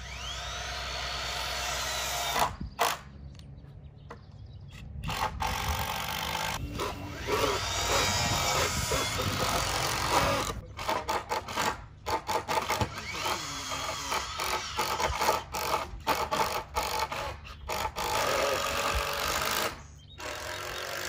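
Power drill driving screws into wooden fence rails, run in several spells with short stops between; each spell starts with the motor's whine rising in pitch.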